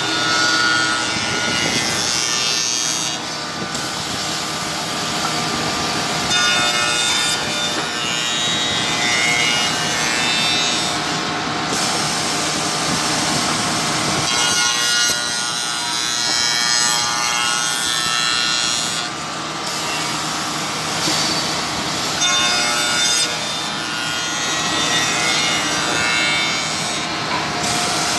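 Waylong CNC tenoning machine's cutter spindles milling tenons on a curved wooden part: a continuous whine and cutting noise. The noise shifts every several seconds as the cutting passes change.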